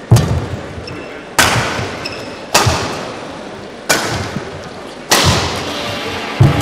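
Badminton rally: rackets striking a shuttlecock, six sharp smacks about every second and a quarter, each ringing on briefly in the large hall.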